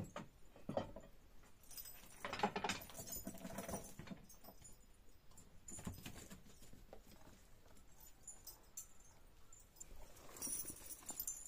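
Goat bleating once, a drawn-out call of about a second and a half starting some two seconds in, with light hoof steps and shuffling around it.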